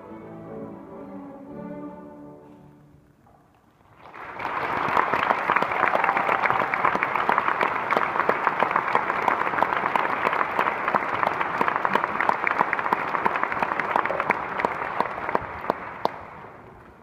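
A group of violins plays the final held notes of a piece, which die away into a brief hush. Then an audience breaks into loud applause, lasting about twelve seconds and thinning out near the end.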